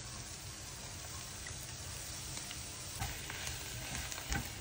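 Spinach, corn and crushed garlic sautéing in butter in a frying pan on high heat, a steady sizzle. A wooden spatula stirs through it, giving a few soft knocks against the pan in the last couple of seconds.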